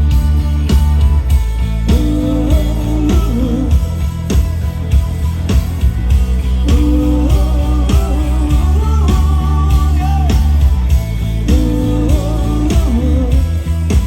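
Live band playing a song with a singer, over a heavy bass and a steady drum beat.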